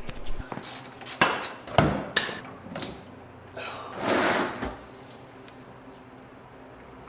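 A handful of sharp knocks and clanks of tools or parts being handled, then a short rustling hiss about four seconds in, as work on the tractor begins.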